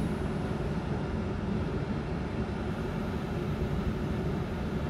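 Steady low rumble and hum of a Trenitalia ETR 425 'Jazz' electric multiple unit (Alstom Coradia Meridian) alongside the platform, with faint high whine tones coming back near the end.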